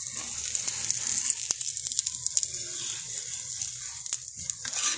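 Oil sizzling and crackling under an aloo paratha frying on an iron tawa, with a few sharp clicks of a metal spatula on the pan as the paratha is lifted to be turned.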